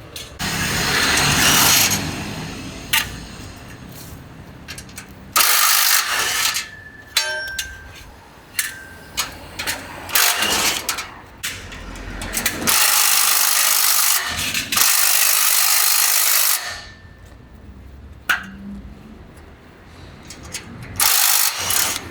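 A power tool runs in several bursts of one to four seconds each, the longest a few seconds past the middle. Between the bursts come sharp knocks and clatter, as a motorcycle shipping crate is taken apart.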